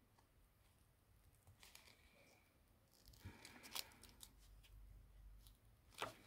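Faint, scattered scrapes and clicks of a thin spatula prying a smartphone's heated, glued back cover open, the adhesive tape parting in short tears.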